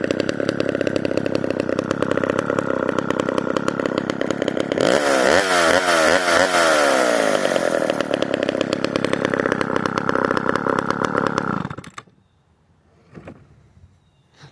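McCulloch Pro Mac 1010 two-stroke chainsaw running steadily, then revved up and down several times in quick succession before settling back. The engine cuts off suddenly about two and a half seconds before the end, leaving only a faint click.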